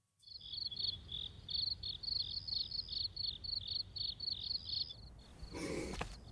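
Crickets chirping at night: repeated short, high chirps, a few a second, over a faint low hum, stopping about five seconds in. A brief burst of noise follows near the end.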